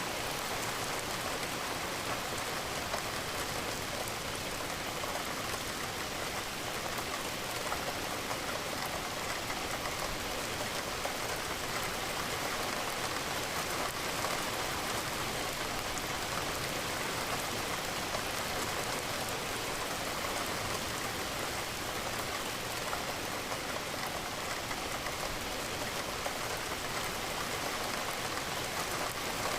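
Steady rainfall with raindrops pattering, an even hiss without pauses or changes.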